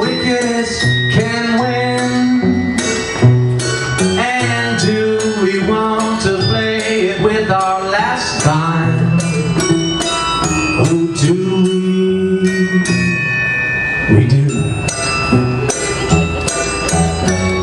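Live music from a small band playing, with a bowed cello among the instruments and steady plucked or struck accents.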